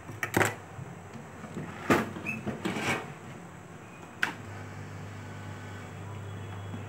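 Steel tweezers clicking and tapping against a phone circuit board and its metal holding plate, a handful of sharp clicks spread over the first few seconds. Near the middle a steady low hum starts and runs on.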